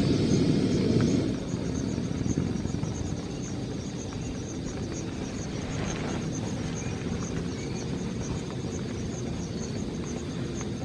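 Rain falling steadily on a tent, a dense even patter with a deeper low rumble that is heavier in the first second and then eases off.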